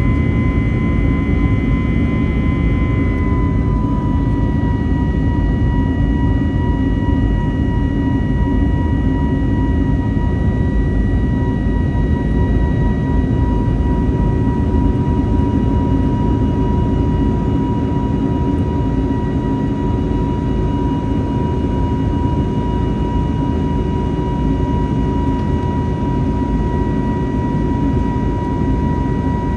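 Airbus A320neo jet engines and airflow heard from inside the passenger cabin during the climb after takeoff: a loud, steady rumble with a high whine whose pitch drops slightly about three seconds in.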